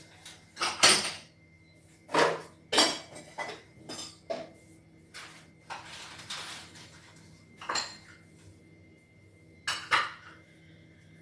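Bowls and dishes being taken down from a kitchen rack and set down, clattering and clinking in a string of separate knocks, the loudest about a second in, with a longer scrape of crockery a little past the middle.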